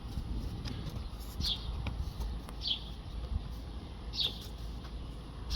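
A bird chirping outdoors: four short, high chirps, each sliding down in pitch, about one every second and a half, over a steady low background rumble.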